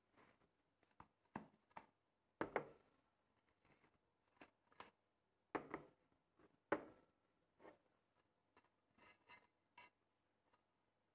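Quiet handling sounds of a fluted cake pan: a cloth and oven mitt rustling against it, with scattered light knocks and scrapes of the pan on the table. The louder knocks come about two and a half, five and a half and seven seconds in.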